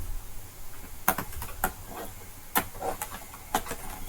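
A handful of sharp plastic clicks and knocks, roughly a second apart, as a laptop is turned over and handled to reach its back case.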